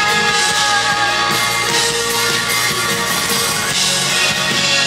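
Live music: a woman singing to her own acoustic guitar through the stage PA. Near the end her voice drops out and the guitar carries on.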